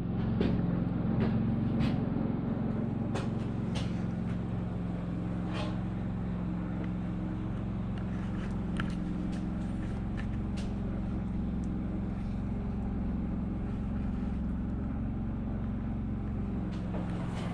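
Bobcat skid steer engine running steadily, with scattered sharp clicks and clanks from the machine.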